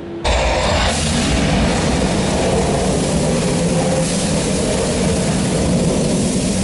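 Staged special-effects show played over loudspeakers: a loud, steady rumbling roar that starts suddenly, with music underneath, accompanying a simulated fire blast.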